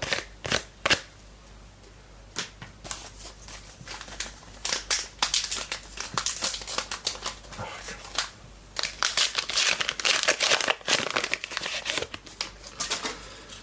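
Foil wrapper of a trading card pack being crinkled and torn open by hand: irregular crackles, sparse at first and then dense and busy for most of the rest.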